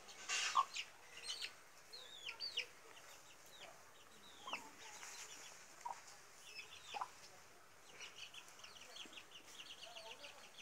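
Chicks peeping in short, high, falling notes, with a few lower clucks mixed in. Near the end the peeps come as a quick run of short chirps.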